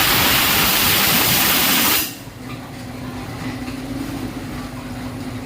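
Pharmaceutical bottle washing machine: a loud hissing jet blast for about two seconds that cuts off sharply, then the machine running with a steady hum.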